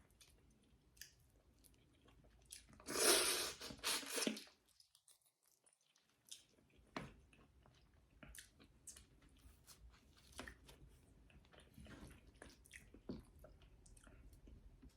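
Close-up mouth sounds of eating egusi soup with fufu and meat: chewing with scattered wet smacks and clicks. A louder, noisy sound lasting about a second comes about three seconds in.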